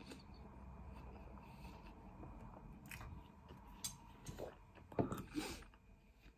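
Quiet close-up chewing of baked beans on toast, with a few soft clicks and mouth smacks; a louder cluster of mouth sounds comes about five seconds in.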